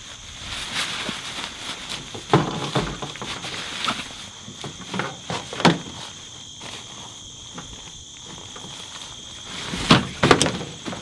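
Handling sounds of a nylon tarp being wrapped and tied around a backpack with paracord: rustling with scattered knocks, and two louder thumps close together near the end as the pack is moved on a plastic truck bed liner. Steady high insect chirring behind.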